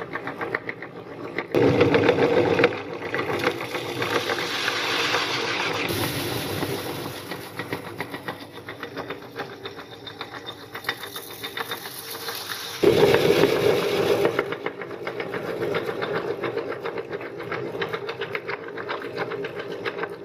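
Metal meat grinder crushing puffed rice into powder: a dense, steady crunching and grinding, louder for a second or two about 1.5 s in and again about 13 s in.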